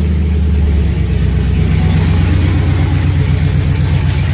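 Chevrolet Trailblazer SS's LS2 V8 just started and running loud on open exhaust straight out of newly fitted headers, with no pipe bolted on after them. About a second in, the start-up flare drops into an even, pulsing idle.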